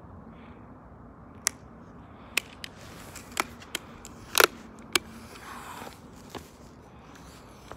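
A string of about eight sharp clicks and taps at uneven intervals, the loudest a quick double click about four and a half seconds in, over low steady background noise.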